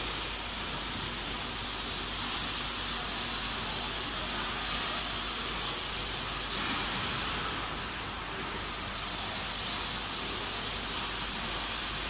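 Jumbo vertical flat glass washing machine running: a steady hiss with a high whine on top that drops out for about a second just after the six-second mark.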